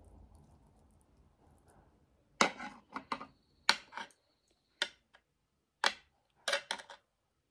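Chopsticks clicking and knocking against each other and the bowl: about eight sharp, irregularly spaced clicks starting a couple of seconds in, one followed by a brief high ring. The chopsticks are slipping in the hand. Faint chewing comes at first.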